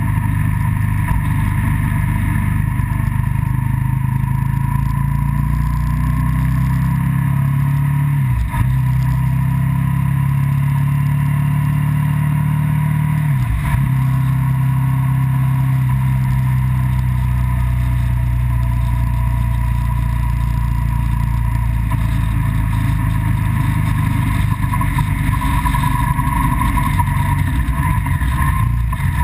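Engine and road noise of the vehicle carrying the camera, running steadily along an open road. The engine note dips briefly twice, about a third and about halfway through.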